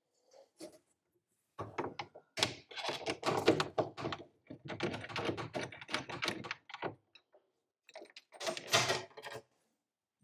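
Rapid clicking, knocking and clattering of tools and metal fittings, in two spells, as nuts are worked off the studs that hold a kit car's aluminium dash former in place.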